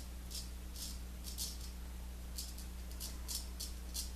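Gold Monkey 777 straight razor scraping through lathered stubble on the upper lip in short strokes, about a dozen rasps, some single and some in quick runs of two or three, over a steady low hum.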